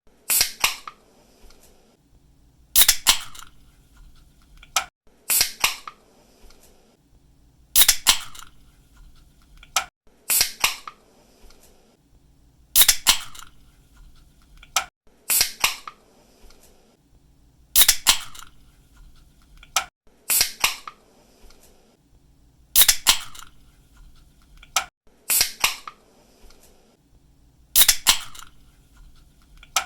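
Pull-tab of an aluminium drink can being cracked open, over and over: a thin click, then about half a second later a sharper snap with a short fizz. The cycle repeats evenly about every two and a half seconds, roughly twelve times.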